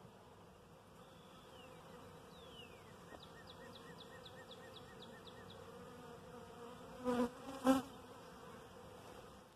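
Honeybees buzzing at a crowded hive entrance and landing board, a faint steady hum. Faint high falling whistles and a quick run of chirps come a second or two in. About seven seconds in there are two short, louder sounds about half a second apart.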